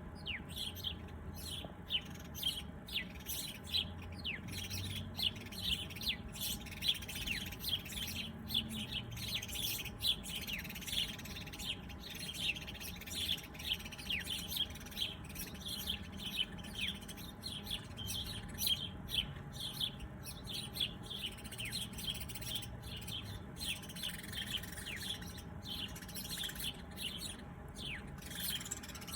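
Several small birds chirping together in a dense, continuous chorus of short chirps and quick falling notes.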